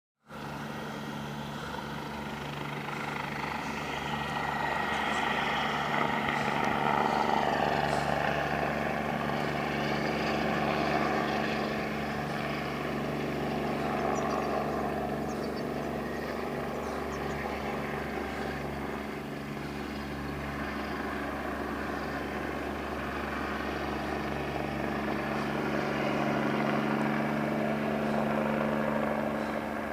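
Helicopter running steadily, its engine whine and rotor sound swelling and easing slightly in loudness.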